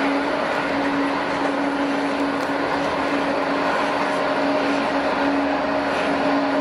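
Jet airliner engines running steadily: a constant rushing noise with one strong held note beneath it and fainter higher notes, no rise or fall in level.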